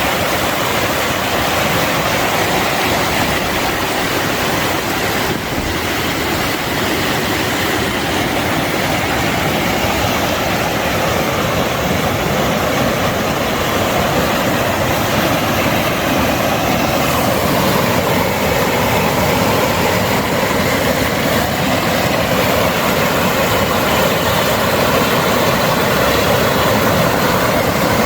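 Sheep River Falls: loud, steady rushing of falling water and whitewater.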